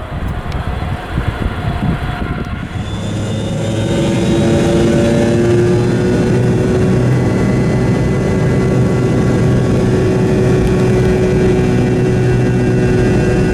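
Jet airliner engines at high power, swelling over the first few seconds and then holding steady and loud, with several whining tones that drift slightly in pitch. Wind buffets the microphone at the start.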